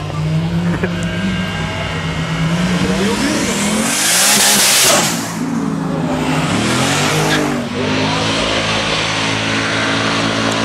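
Car engine revving hard, its pitch climbing, then a loud rush as a car passes close at speed about four seconds in, and again more briefly later. Revving in stepped surges follows, with tyre squeal from a car doing a burnout.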